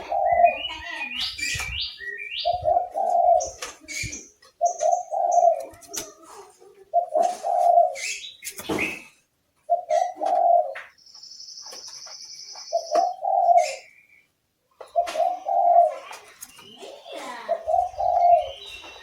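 Oriental magpie-robin (kacer) singing in short high chirps, quick rising whistles and one held high whistle note near the middle, over a low dove-like coo repeated about eight times, two to three seconds apart.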